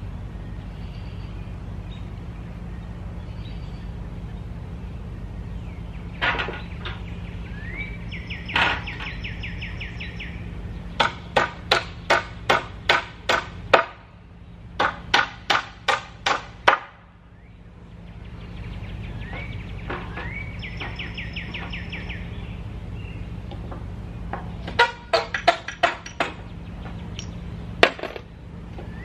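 Hammer striking nails in old 2x4 boards while the nails are knocked out of the lumber: a couple of single blows, then two quick runs of six or seven strikes each, a pause, and another run near the end. A bird sings a trill twice in between, over a low steady hum.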